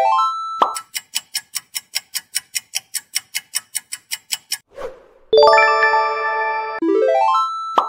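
Quiz-game sound effects. A quick rising run of chime notes comes first, then a countdown timer ticking about four times a second for nearly four seconds. A short whoosh follows, then a bright ringing chime chord for the answer reveal, and near the end another rising run of chime notes.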